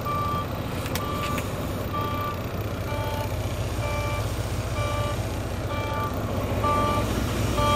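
Volvo semi-truck's in-cab warning chime beeping about once a second in a two-note pattern over the steady low rumble of its idling diesel engine, typical of the low air pressure alarm while the air system builds pressure after the truck has sat.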